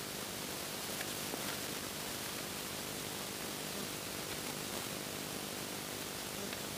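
Steady, even hiss of rain falling, with a few faint ticks.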